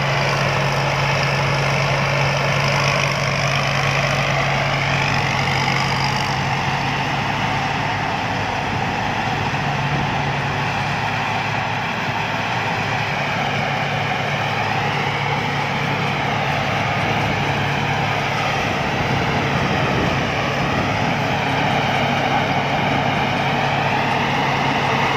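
Rice combine harvester running steadily: a constant low engine hum under a dense mechanical clatter, with a higher whine that rises and falls a few times.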